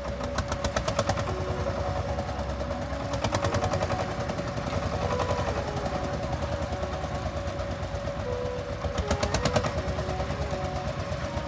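An engine running with a rapid knocking clatter. The knocking surges louder about a second in, around three seconds in and again near the end.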